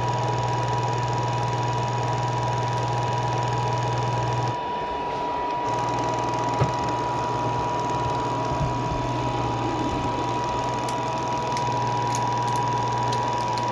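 Robot vacuum cleaner running: a steady motor hum with a thin high whine over the whir of its suction. The low hum drops away for about a second, about four seconds in, then returns, with a few light knocks.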